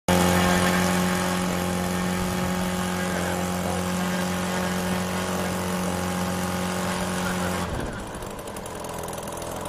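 A.P.E. 25cc four-stroke flat-twin rotary-valve model engine, freshly rebuilt and not yet fully run in, running on a test bench driving a 17x8 propeller at a steady, even pitch. About eight seconds in, the revs drop sharply to a lower, quieter idle.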